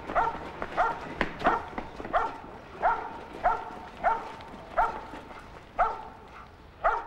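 A dog barking over and over, short barks at about two a second, with a single sharp knock about a second in.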